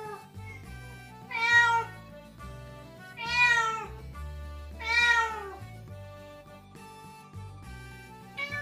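A domestic cat meowing three times, each call about a second long and rising then falling in pitch. Near the end a second cat gives a short answering meow. Background music plays throughout.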